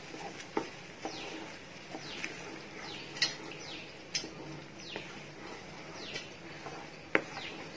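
Wooden spatula stirring a thick ground gravy paste frying in butter and oil in a nonstick pan, with a few sharp knocks of the spatula on the pan, the loudest near the end. Behind it, a bird gives repeated short falling chirps, about one or two a second.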